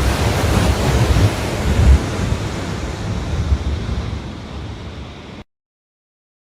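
Loud rushing noise with a heavy low rumble. It starts abruptly, fades slowly over about five seconds, then cuts off suddenly.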